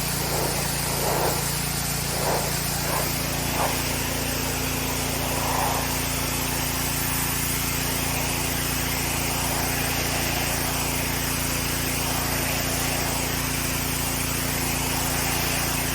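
Gas-engine pressure washer running steadily with the hiss of its spray jet, with a few short louder swells in the first few seconds.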